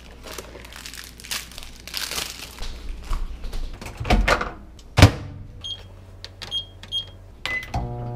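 A cardboard popcorn box being torn open and rustled, then a microwave oven door opened and shut, the shutting a loud thunk. About four short high keypad beeps follow as the cooking time is set, then one lower beep; music starts near the end.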